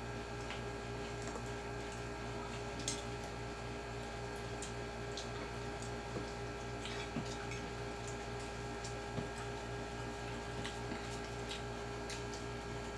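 Mukbang eating sounds: a few faint, scattered clicks and squishes of chewing and utensils over a steady electrical hum.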